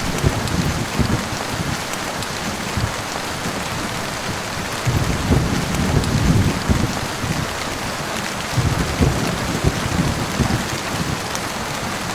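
Steady heavy rain falling, with low rolls of thunder rumbling in several times: briefly at the start, longest in the middle, and again near the end.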